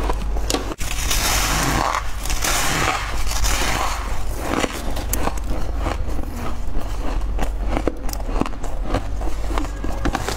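Crushed ice crunching and crackling as it is chewed and scooped up by hand, a dense run of sharp clicks, over a steady low hum.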